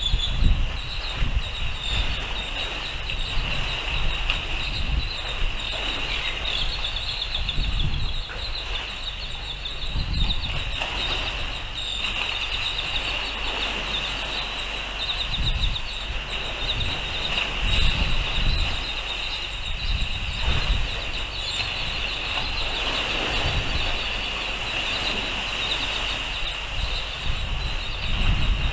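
Wind buffeting the microphone in irregular low gusts, over a steady high-pitched fluttering hiss.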